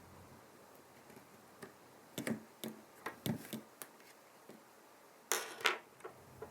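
Small sharp clicks and taps of hand tools and parts on a smartphone being worked on: a quick cluster about two to four seconds in, then two louder scraping clicks near the end.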